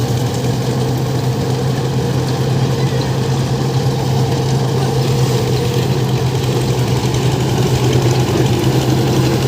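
Paddy thresher machine running steadily, with a continuous engine drone and a strong, even low hum.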